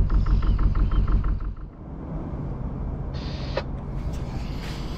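A boat's diesel engine idling with an even knock of about eight beats a second; about one and a half seconds in the sound drops to a quieter, steady engine hum, with a short hiss a little after three seconds.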